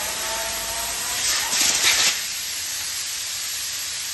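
Compressed air hissing from a blow gun as a car's cylindrical air filter element is blown clean, with a louder, sharper blast about a second and a half in.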